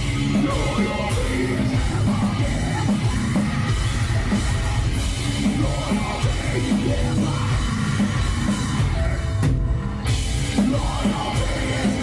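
Heavy metal band playing live: drums and distorted guitars with vocals, a breakdown, with a brief stop in the high end about nine and a half seconds in before the band comes back in.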